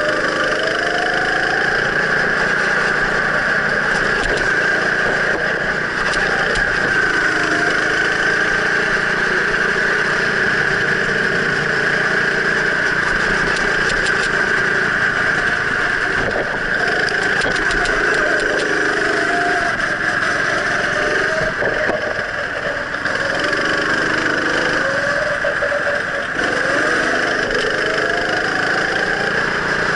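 Go-kart engine heard from on board, running hard around a track, its pitch rising and falling again and again as it slows for corners and accelerates out of them, over a steady high hiss.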